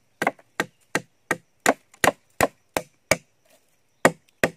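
Machete chopping into a gelam-wood log: sharp, regular strikes about three a second, with a pause of about a second before two more blows near the end.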